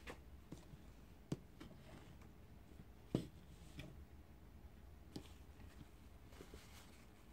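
A steady low hum with a few sharp clicks and light knocks from a plastic headlamp being handled and set down on a hard work table. The loudest knock comes about three seconds in.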